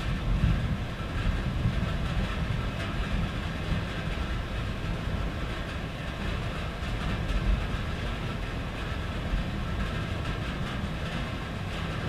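Steady rain falling on a tin roof, with a low continuous rumble underneath.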